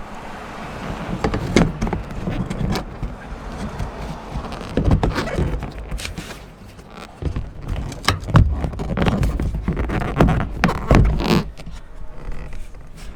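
Irregular scraping, rustling and sharp knocks and clicks of a mud-flap mounting bracket being worked and pushed into place by hand.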